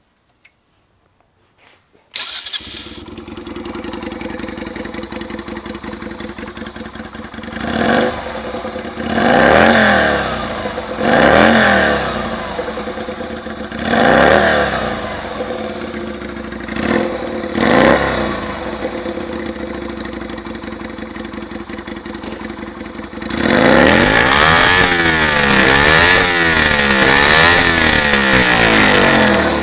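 Yamaha XV125 Virago's small V-twin engine, exhausting through drag pipes with a homemade silencer, starts about two seconds in and settles to a steady idle. It is revved in about six quick blips, then held at higher revs for several seconds near the end before dropping back.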